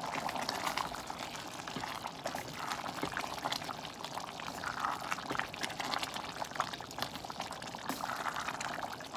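Rice simmering in a pot of broth, bubbling and sloshing as a wooden spoon stirs it, with small irregular ticks and scrapes.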